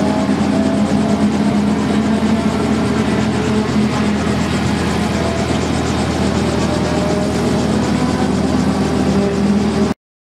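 Light helicopter running on the ground with its rotors turning: a steady engine drone with a rapid, even rotor beat. The sound cuts off abruptly near the end.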